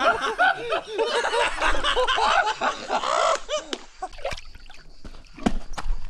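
Several men laughing and calling out, the laughter dying down about four seconds in, followed by a couple of sharp knocks near the end.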